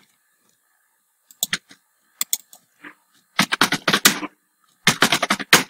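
Computer keyboard typing: a few scattered keystrokes, then two quick runs of keys, one about halfway through and one near the end.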